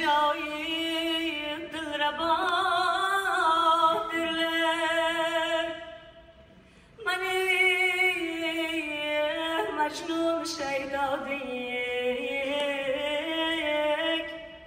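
A woman singing an Uzbek song solo into a microphone, in long ornamented phrases with wavering held notes. There is a short break of a second or two in the middle.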